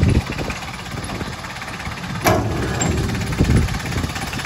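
Kubota four-cylinder diesel engine of a Dynapac CG16C II vibratory roller idling with a steady low rumble. A single sharp click comes about two seconds in.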